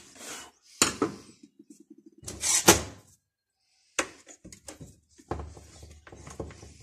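Clicks, knocks and light clatter of a screwdriver and small chainsaw parts being handled on a steel workbench while a chainsaw is taken apart to change its anti-vibration mounts, with a quick run of small ticks about one and a half seconds in.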